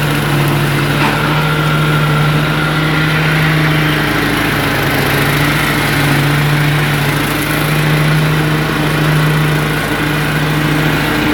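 Zero-turn riding lawn mower's engine running steadily, its low hum swelling and easing slightly as it is driven.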